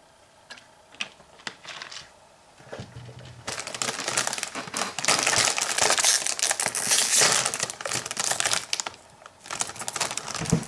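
A few faint clicks, then a Lay's potato chip bag crinkling and crackling loudly for several seconds as it is pulled open, from about three seconds in until about nine.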